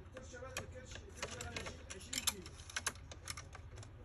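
Irregular plastic clicks and taps from a laptop's casing and parts being handled during disassembly, a few of them sharper and louder than the rest.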